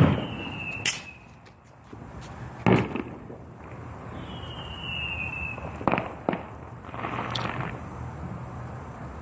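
Consumer fireworks going off: a loud bang at the start and another just under three seconds in. Between them are two whistles, each falling in pitch and lasting about a second, then a pair of sharp cracks around six seconds and a short crackling burst about seven seconds in.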